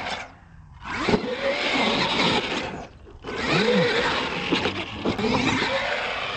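Radio-controlled monster truck motors revving, their whine rising and falling in pitch as the throttle is worked. The sound drops away briefly about half a second in and again about three seconds in.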